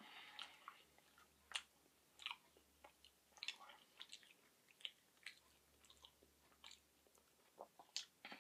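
Faint chewing of a chocolate with a caramel-nougat filling and nuts: irregular soft clicks and smacks of the mouth.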